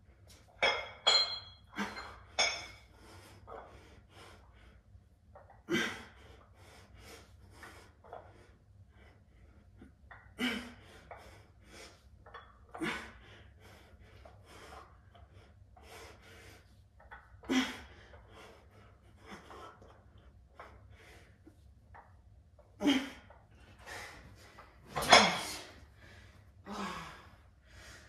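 Forceful breaths out during bicep curl reps, short and a few seconds apart, the loudest near the end. A few metallic clinks about a second in.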